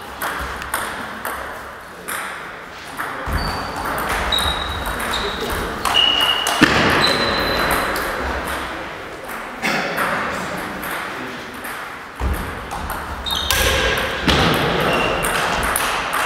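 Table tennis rally: a celluloid-type ball clicking rapidly back and forth off rubber-faced paddles and the tabletop, with short high squeaks of sports shoes on the wooden floor in between.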